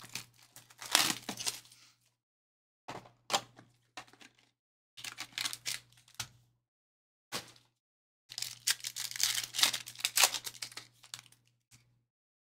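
Trading card box and foil packs being torn open: wrapping ripping and crinkling in five bursts, the longest near the end.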